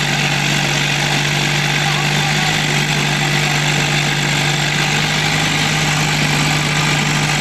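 Diesel engines of a Swaraj 744 XT and a Mahindra 585 DI tractor running steadily with a constant low hum, the two tractors pulling against each other on a taut rope in a tug-of-war.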